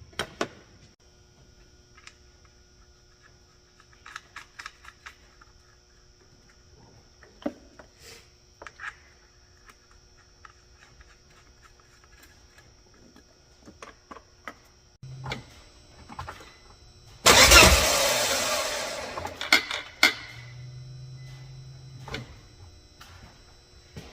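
Volvo V70R's turbocharged five-cylinder engine being cranked by the starter for about two seconds, about seventeen seconds in, during a check of fuel pressure on a car that won't start. Scattered light clicks come before it, and a low hum follows.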